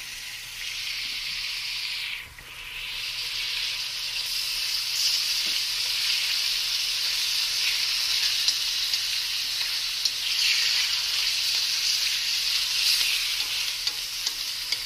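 Marinated pork strips sizzling in hot oil in a stainless steel wok while being stirred with wooden chopsticks. The sizzle dips briefly about two seconds in, then comes back louder and stays steady.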